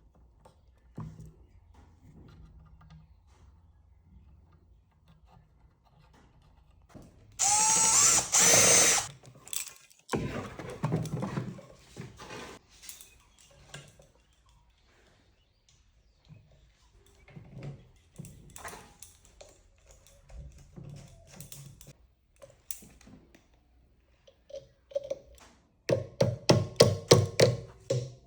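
Repair-bench tool work on a table fan: a power tool runs for about two seconds, its pitch bending as it spins. Scattered clicks and knocks of parts being handled follow, then a quick run of short rattling strokes, about four a second, near the end.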